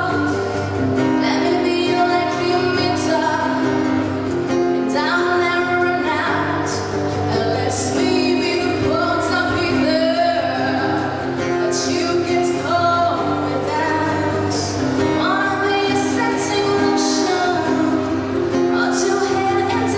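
A woman singing a slow song to acoustic guitar accompaniment, her voice carrying the melody over steady strummed chords.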